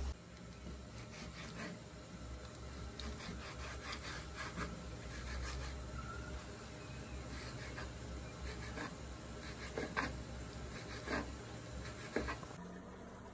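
Kitchen knife slicing and dicing raw chicken breast on a wooden cutting board: irregular taps and scrapes of the blade on the wood over a low steady hum. They stop shortly before the end.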